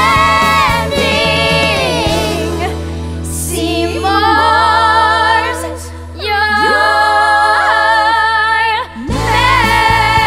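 A woman and a boy singing a show-tune duet in long held notes with vibrato, over band accompaniment. The accompaniment thins out after about two seconds, then swells back in after a brief break near the end.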